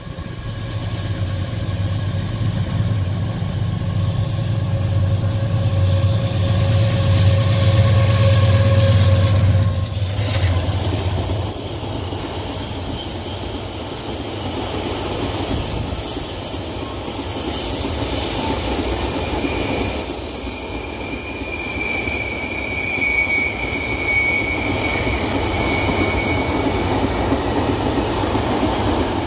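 A loaded iron-ore train passing at speed: the diesel-electric locomotives go by first with a loud, low engine drone that fades about ten seconds in. After that comes the steady rumble of the ore wagons rolling on the rails, with thin high-pitched wheel squeal on the curve.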